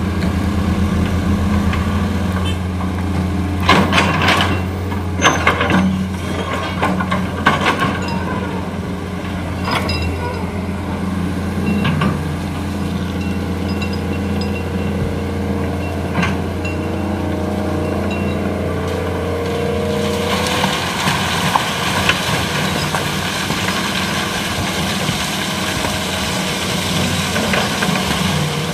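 Heavy diesel engine running steadily under several sharp metallic clanks and knocks, most of them between about 3 and 16 seconds in. In the last third a broad rushing noise joins it.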